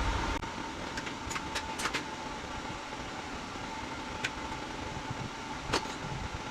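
Scattered sharp clicks and taps of a socket wrench on the driveshaft bolts, about eight in all, bunched in the first two seconds and again near the end. A steady hum runs underneath.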